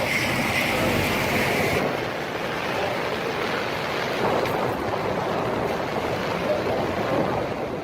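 Steady roar of tornado wind, with wind blasting the microphone; the high hiss thins about two seconds in.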